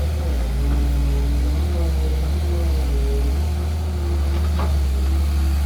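Excavator's diesel engine running steadily with a heavy low rumble, with a person's voice over it.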